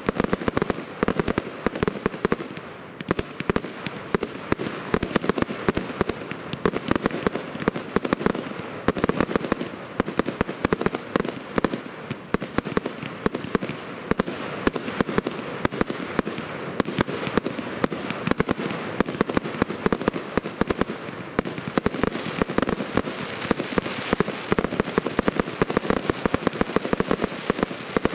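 Professional fireworks display firing continuously: a dense, rapid run of bangs and crackles from bursting fireworks, with no break.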